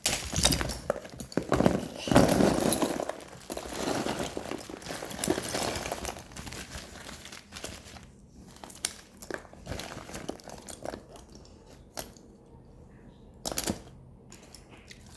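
Parcel packaging crinkling and rustling as it is handled and opened. The crinkling is dense and loudest in the first few seconds, then thins to scattered rustles and sharp clicks.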